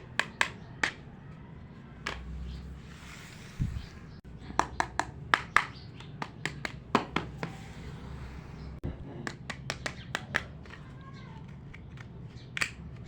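Sharp, irregular clicks and taps of small plastic toy pieces being handled, with a soft rustle of packaging about two to four seconds in.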